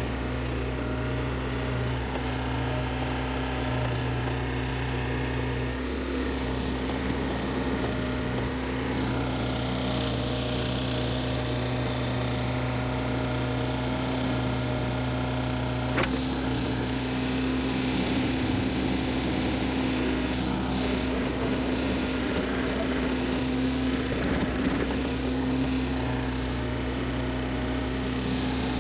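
Compact excavator's diesel engine running steadily, with one sharp knock about halfway through.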